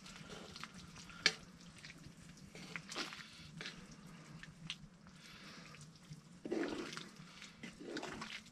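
Wooden spatula stirring a bubbling stew in a cast iron Dutch oven: soft sloshing and simmering, with a few light knocks of the spatula against the pot.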